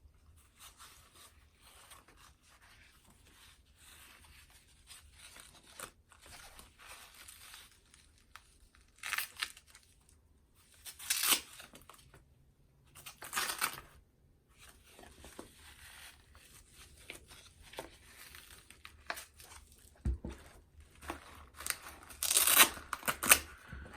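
Goalkeeper glove being handled as its removable finger-safe spines are pulled out of the fingers. Faint rustling with several short scratchy noises, the loudest about halfway through and near the end.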